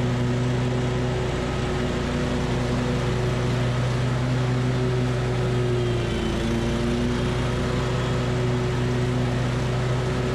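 Hustler Super S stand-on mower's engine running steadily while mowing, with a brief dip in pitch about six seconds in.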